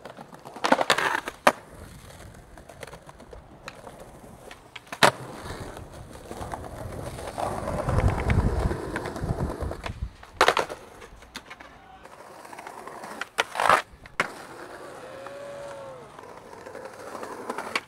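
Skateboard wheels rolling, with several sharp clacks of the board: tail pops and landings. The wheel rumble grows loudest about eight seconds in.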